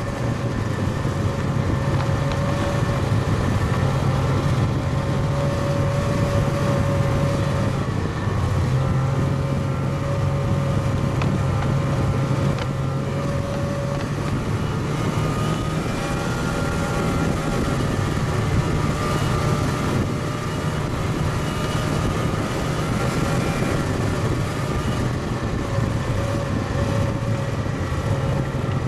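Snowmobile engine running steadily under way, heard from on board, with a continuous drone; the engine note dips briefly about eight seconds in and then picks up again.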